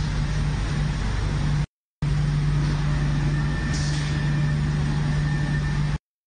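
Steady machinery hum from a plate-and-frame filter press installation at work: a constant low drone over a wash of noise. It cuts to silence briefly just under two seconds in and again near the end.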